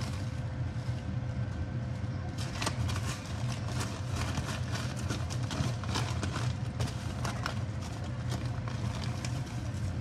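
A spoon scraping and digging at rock-hard brown sugar, making a string of irregular clicks, taps and scrapes over a steady low hum.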